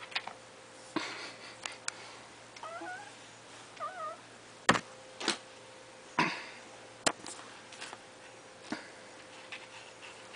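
A kitten gives two short, wavering meows, about three seconds in and again a second later. Sharp knocks and brief rustles come throughout, the loudest knocks just after the meows.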